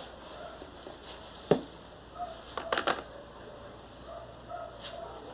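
Foam slime full of polystyrene beads being squeezed and pressed, giving crackling clicks: one sharp crackle about a second and a half in, then a quick run of crackles around three seconds.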